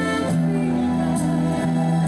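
A woman singing held notes into a microphone over instrumental accompaniment, in a slow song.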